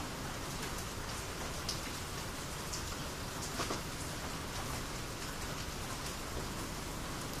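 Steady rainy-season rain falling, an even hiss of rain with individual drops ticking close by, two of them a little louder about one and a half and three and a half seconds in.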